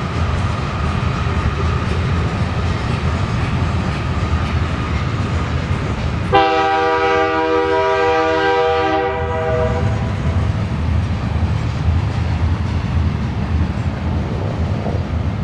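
Diesel locomotive horn sounding one long blast of several notes at once, lasting about three and a half seconds from about six seconds in, over the steady rumble and clatter of a train on the tracks.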